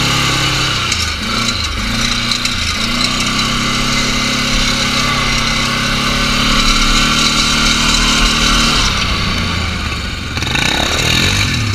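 Can-Am Outlander 450 ATV's single-cylinder engine running under throttle while it is ridden, its pitch shifting with the throttle and dropping about nine seconds in.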